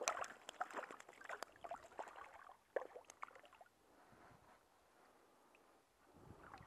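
Small trout splashing and thrashing at the water's surface as it is drawn in on the line to the hand. A sharp splash at the start and another near three seconds in, then the splashing dies down after about four seconds as the fish is held.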